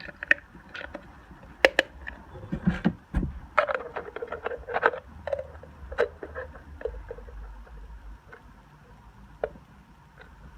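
Small hard-plastic parts being handled and pressed together on a miniature plastic wheelie bin: irregular clicks and taps, with a stretch of scraping and rubbing a few seconds in, as the wheels and fittings are pushed into place.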